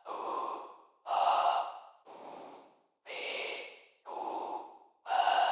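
Synthetic breathing sounds: filtered vocal vowel sounds fed through automated reverb decay in Pro Tools, giving breath-like swells about once a second, some louder than others.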